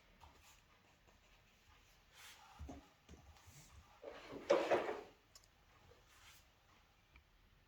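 Soft handling noises with no motor running: a low knock about two and a half seconds in, a louder scraping rustle around four and a half seconds, and a few faint clicks.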